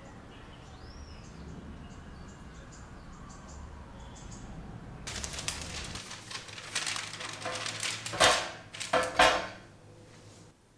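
Household handling sounds: a steady low hum, then rustling and clattering from about halfway, with three loud knocks or clinks near the end.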